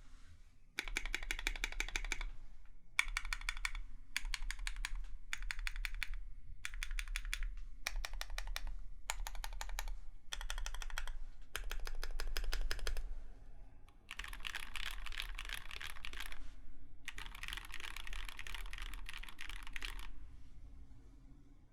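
Typing on a KBDFANS 5 Degree mechanical keyboard with Krytox 205g0-lubed Gateron Yellow linear switches (milky tops), an aluminium plate and blank keycaps: short runs of rapid keystrokes with brief pauses between them, the last two runs longer, stopping near the end.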